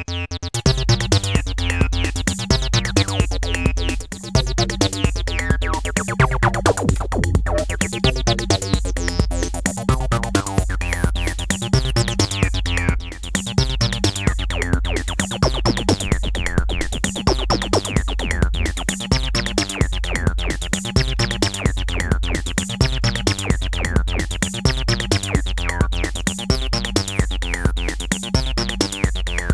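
Acid bassline from a Korg Electribe EMX set up to emulate a Roland TB-303, with its resonant filter sweeping and squelching over a steady drum-machine kick pattern. It plays on without a break and stops at the very end.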